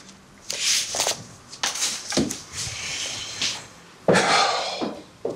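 Rustling and scraping as a man pulls up a chair and sits down at an office desk, with clothes and papers rustling in a few separate bursts and a louder short scrape about four seconds in.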